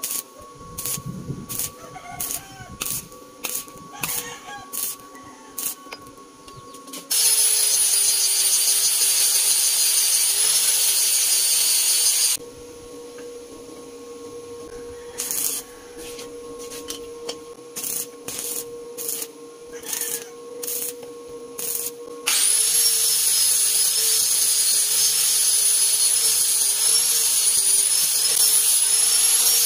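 Angle grinder with a flap disc grinding steel held in a bench vise, with a high whine over the grinding noise. It runs in two stretches: for about five seconds starting about seven seconds in, and again from about three quarters of the way through. Before and between the grinding comes a run of short, sharp metal knocks.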